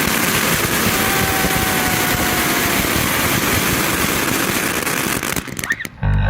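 Ground fountain firework spraying with a loud, steady hiss that cuts off about five and a half seconds in. A short, loud low sound follows near the end.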